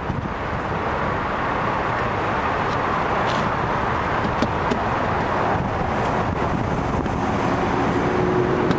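Plastic protection cover (vapor barrier) of a car's inner door rustling continuously as it is pulled away from its black glue and butyl tape.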